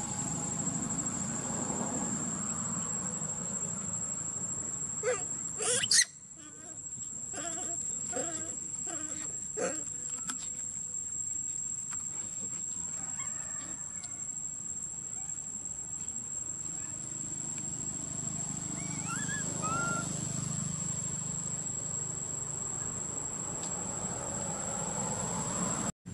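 Steady high-pitched insect drone throughout. About five to six seconds in there is a short, sharp, loud call, followed by a few scattered shorter sounds. A few brief rising chirps come about twenty seconds in.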